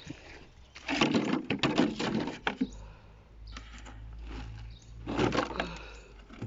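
Thin plastic crackling and clicking as cut plastic bottles used as covers are handled and lifted off pepper seedlings, in two bursts: a longer one about a second in and a shorter one about five seconds in.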